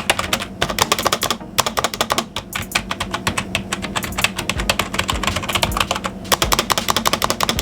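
Rapid typing on the membrane keys of a Zebronics Zeb-Magnus gaming keyboard: a dense, continuous run of soft key clicks.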